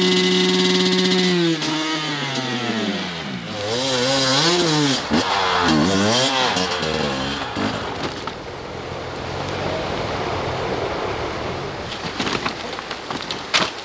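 Dirt bike engine held at high revs, then dropping away. It is blipped up and down in quick bursts several times before settling into a rougher, lower running sound.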